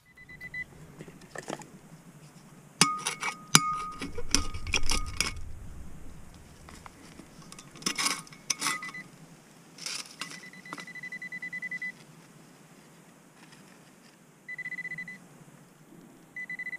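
A metal digging tool striking and scraping stony soil, with a cluster of sharp clinks a few seconds in and more strikes later. Between them, a metal-detecting pinpointer gives a high, steady electronic tone in several bursts, the longer ones in the middle and near the end, signalling metal in the hole.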